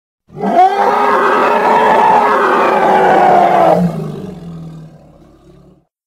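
Elephant-like roar sound effect: one loud pitched call that rises sharply at the start, holds steady for about three seconds, then drops into a lower rumbling tail that fades out.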